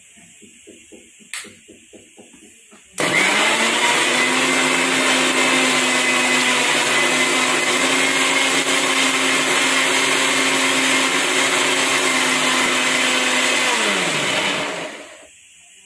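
Maharaja Whiteline electric mixer grinder grinding chopped tomatoes, green chillies, ginger and garlic into a thick paste without added water. The motor starts suddenly about three seconds in and runs loud and steady for about eleven seconds. Near the end it is switched off and winds down with a falling pitch.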